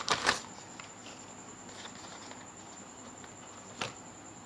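Plastic courier packaging crinkling as it is handled and opened: two short crinkles right at the start, then quieter handling with one small click near the end.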